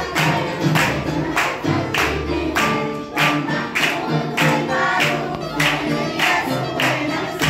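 A group of young children singing together along to backing music with a steady beat of about three strokes a second.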